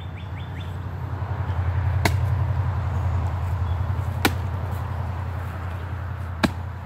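An axe striking a rotted log three times, about two seconds apart, each a single sharp chop, over a steady low rumble.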